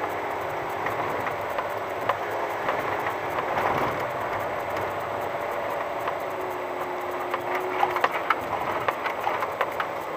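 VW T5 California van rolling slowly over an unpaved gravel and dirt track: steady tyre noise with a stream of clicks and rattles from stones and the cabin, thickest about eight to ten seconds in.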